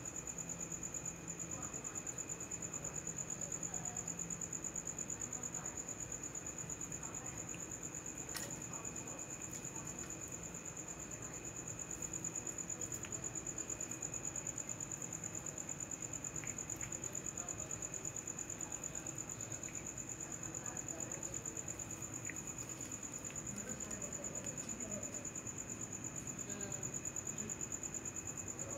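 Crickets trilling steadily in a continuous, high-pitched, fast-pulsing chorus. A few faint clicks sound now and then.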